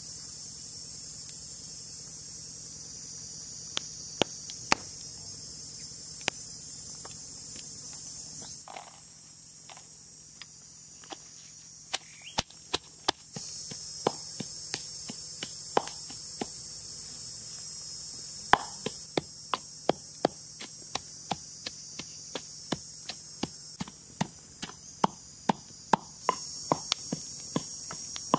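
Steady high-pitched insect buzz, cricket- or cicada-like, that drops away for a few seconds about a third of the way in. From about halfway there are sharp knocks of a pestle pounding in a clay mortar, coming about twice a second near the end.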